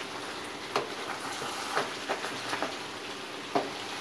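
Pressure-cooked mutton pieces frying in hot oil in a karahi with a steady sizzle, while a wooden spatula stirs them, knocking and scraping against the pan about five times.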